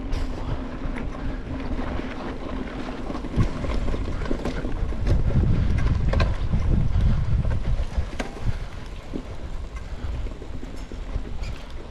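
Mountain bike riding downhill over grass and dirt: wind rushing over the action-camera microphone and tyres rumbling on the rough ground, with scattered sharp knocks from the bike. The rumble is heaviest from about five to eight seconds in.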